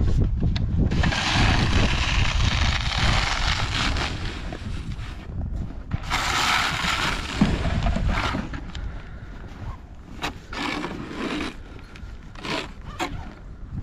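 Scraping on snow and ice, two long stretches in the first half, over a steady low rumble of wind on the microphone; a few short sharp clicks near the end.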